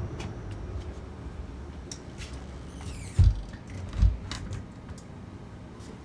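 A door being handled: scattered small clicks, a short creak falling in pitch about three seconds in, then two dull thumps a little under a second apart.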